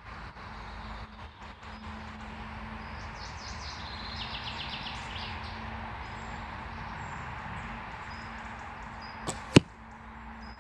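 Arrow shot from a 40-lb Samick SHT recurve bow striking a foam target butt with one sharp, loud smack near the end, a fainter click coming a moment before it.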